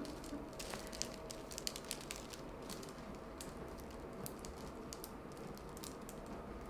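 Faint, irregular light clicks and rustles of small movements in a quiet room, a little denser about a second in.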